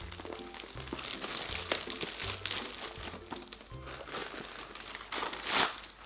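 Plastic mailer bag crinkling and rustling as a box is pulled out of it, loudest near the end, over background music with a repeating bass line.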